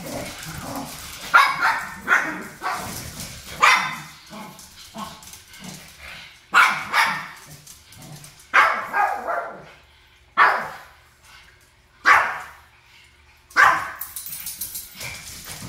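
Japanese Chin dogs barking in short, sharp barks, often two in quick succession, with pauses between, as they squabble with each other.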